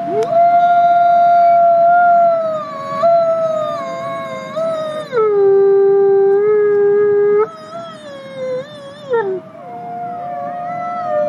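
Gray wolf howling: one long, loud howl held on a steady note, stepping down to a lower note about halfway through, then rising again and wavering down until it breaks off a couple of seconds before the end. A second, fainter howl carries on after it stops.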